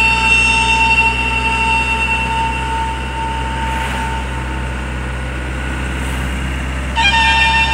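Steady engine and road rumble inside a moving minibus cabin. Over it, a long steady high-pitched tone is held, fades out about three and a half seconds in, and comes back louder near the end.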